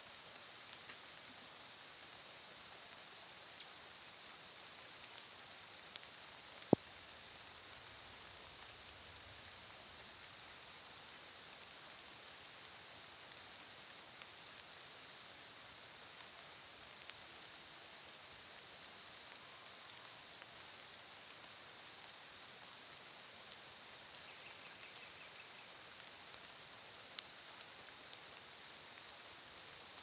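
Faint steady hiss of water drops falling just after rain, with scattered soft ticks and one sharp click about seven seconds in.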